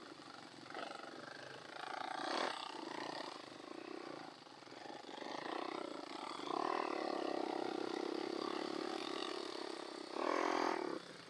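Quad (ATV) engines running at trail speed over rocks, holding steady and then surging louder in a rev near the end.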